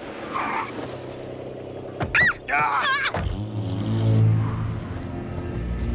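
Cartoon sound effect of a limousine's engine running as the car pulls up, with a brief high-pitched sound about two seconds in and a steady low hum after it. Low, ominous music starts near the end.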